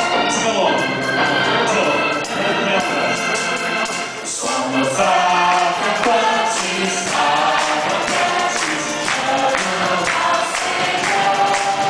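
A group of voices singing a worship song together, accompanied by electric organ, violins and guitar, with a steady beat.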